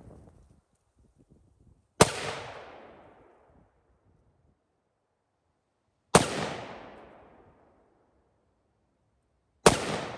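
Three single shots from a scoped Smith & Wesson AR-15 rifle firing 5.56 rounds, about four seconds and then three and a half seconds apart. Each is a sharp crack followed by a long echoing tail.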